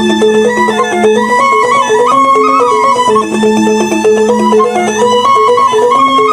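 Balinese rindik (bamboo xylophone) music: quick runs of struck pitched notes, with a held melody line above them.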